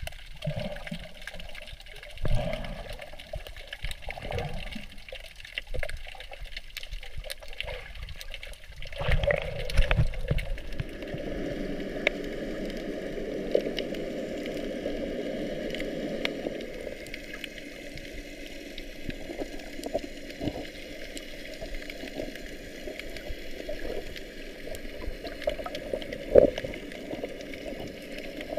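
Muffled underwater sound picked up by a GoPro HERO4 Silver in its waterproof housing: water moving and gurgling around the camera, with scattered knocks and clicks and a louder cluster of knocks about nine seconds in.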